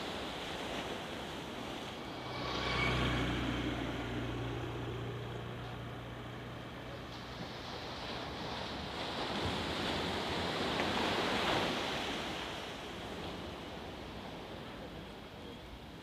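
Sea waves surging and breaking on the shore, swelling loudest about three seconds in and again around eleven seconds. A low steady engine-like hum runs underneath from about two to nine seconds in.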